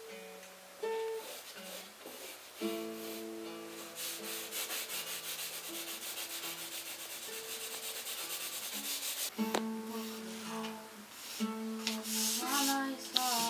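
Charcoal stick scraping across drawing paper in quick, even shading strokes, about five a second, for several seconds in the middle, over slow, held guitar notes.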